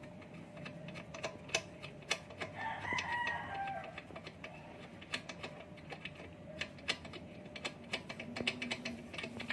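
Light metallic clicks and clinks of the exhaust pipe's mounting bolt and hand tools being worked loose on a scooter. A rooster crows once about three seconds in.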